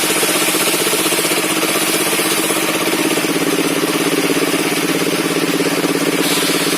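Engine driving a circular sawmill, running steadily with a fast, even pulsing and a constant high hiss over it.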